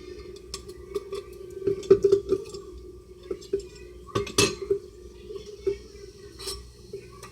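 Stainless-steel parts of an electric espresso maker being handled: scattered metal clinks and knocks, the loudest about two seconds in and again past the four-second mark, over a steady low hum.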